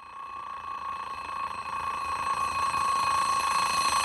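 Twin-bell alarm clock ringing continuously, fading in from silence and growing steadily louder.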